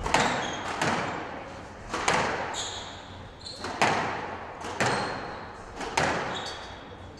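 A squash rally: the ball is struck by rackets and smacks off the court walls about once a second, each hit ringing with echo in the enclosed court. Short high squeaks come between the hits, like court shoes on the floor.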